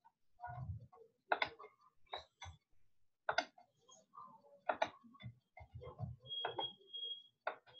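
Irregularly spaced sharp clicks and soft thumps close to the microphone, with a thin, steady high tone lasting about a second near the end.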